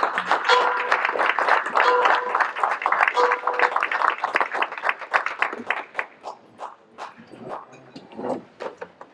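Audience applauding, the clapping dense at first and then thinning out and dying away over the last few seconds. A short held note sounds three times over it in the first few seconds.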